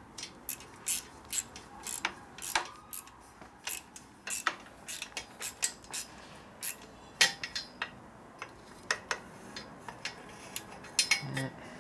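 Steel wrench clinking and knocking against bolts and metal parts as it is fitted and worked: a run of irregular sharp clicks, several close together near the end.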